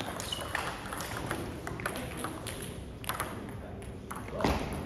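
Table tennis balls clicking off paddles and the table in an irregular run of sharp ticks, with a louder knock about four and a half seconds in.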